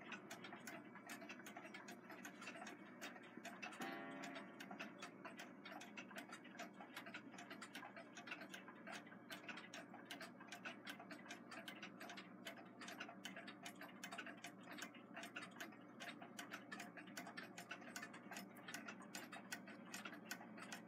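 Several pre-1934 nickel-plated Westclox wind-up alarm clocks ticking together, faint and out of step with one another, so the ticks overlap into an uneven patter. A brief pitched ring sounds about four seconds in.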